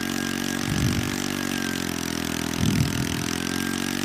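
Motorcycle engine running steadily at speed, its spinning wheel driving an old stationary diesel engine's flywheel to crank it up before starting. A brief swell in the sound comes about every two seconds.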